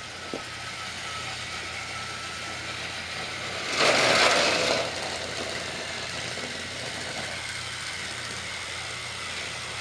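Battery-powered TrackMaster toy train motors whirring steadily as the trains run on plastic track, with a louder rattling rush lasting about a second, about four seconds in.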